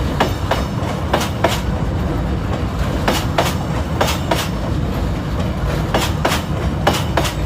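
SE1 passenger train running on the rails: a steady low rumble with the wheels clicking over rail joints in quick pairs, a pair every second or two.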